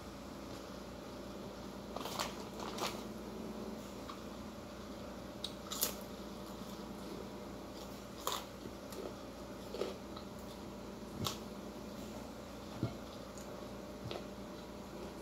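A person eating grilled chicken by hand: chewing and picking at the meat on a plate, heard as short, irregular clicks and mouth noises about every second or two over a steady low hum.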